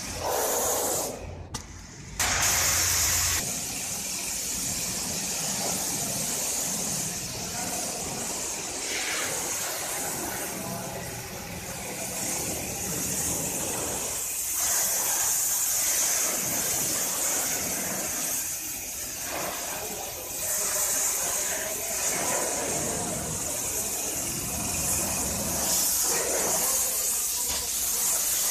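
Kärcher HD 6/15-4 Classic electric pressure washer running, its high-pressure water jet hissing against a car's bodywork over the hum of the pump motor. The sound drops out briefly near the start, then carries on.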